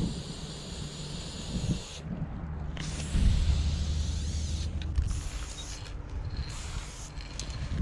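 Aerosol spray-paint can hissing: one long spray that cuts off about two seconds in, then several shorter bursts with brief pauses between them. A low rumble runs underneath.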